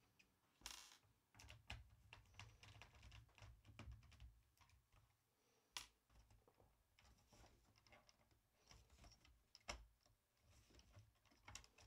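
Faint, irregular clicks and taps from hands handling a Lenovo IdeaPad 310 laptop's plastic bottom case on the bench, with a few sharper clicks.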